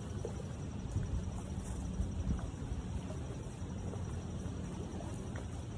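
Wind gusting over the microphone: a low, uneven noise that swells and dips.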